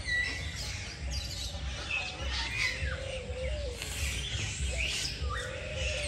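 Many caged birds chirping and calling at once: a busy mix of short high chirps and gliding calls, with a few lower whistled notes, over a steady low rumble.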